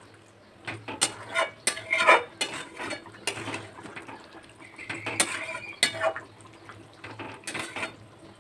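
Metal kitchen utensils and a cooking pot clattering: a string of irregular clinks and knocks, some with a brief metallic ring.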